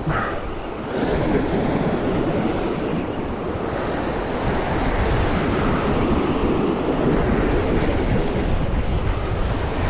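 Sea surf breaking and washing over shore rocks, mixed with wind buffeting the microphone in a steady, loud rush.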